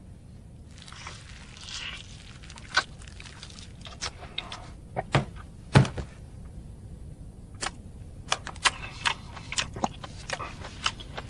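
Quiet eating sounds as a man bites and chews a boiled egg: scattered small clicks and crackles over a faint hiss, the sharpest a little past the middle.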